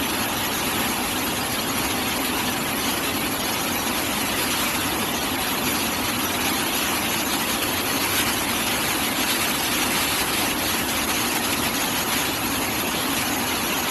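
A DTH rock drilling rig running steadily: an even, unbroken machine noise with no pauses or changes.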